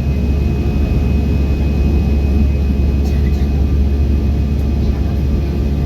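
Steady, loud cabin roar of an Airbus A320-214 in flight: a deep rumble from its jet engines and airflow, with a few faint steady tones riding above it.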